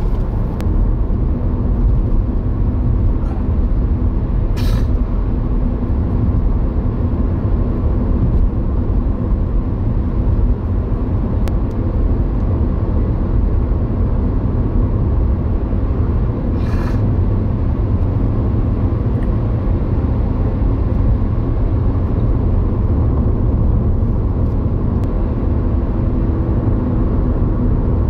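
Steady low rumble of a car's road and engine noise heard inside the cabin at around 50 mph, with two brief hisses, about five and seventeen seconds in.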